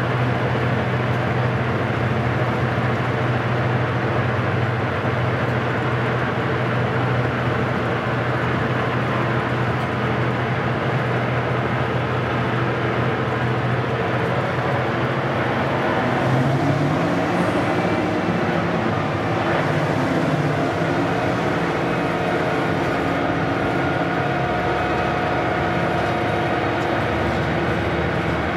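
Class 55 Deltic locomotive's two Napier Deltic two-stroke opposed-piston diesel engines running steadily, heard from inside the cab as it moves along the line. About halfway through the engine note rises and holds higher.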